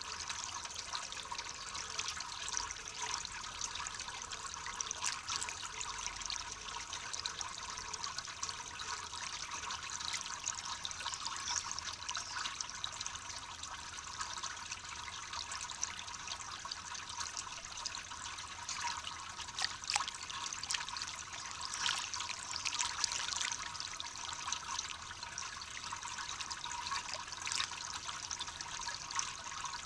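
Water trickling steadily, broken by many short splashes and flicks of water from a bathing common blackbird.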